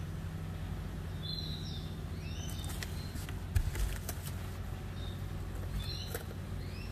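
Repeated short bird chirps over a steady low hum, with a cluster of crinkles and taps from plastic wrap being handled about halfway through.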